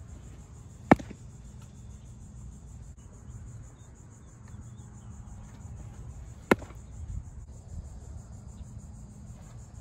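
Curveballs popping into a catcher's leather mitt: two sharp pops, the first about a second in and the second about five and a half seconds later, over a steady low outdoor rumble.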